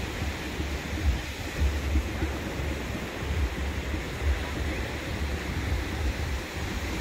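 Wind buffeting the microphone in uneven low gusts, over the steady noise of surf breaking on a sandy shore.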